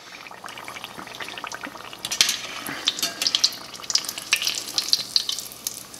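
Egg roll deep-frying in hot oil in a cast-iron pot, sizzling and crackling with many small pops, heavier from about two seconds in, as it is turned and scooped with a metal spatula and a wire skimmer.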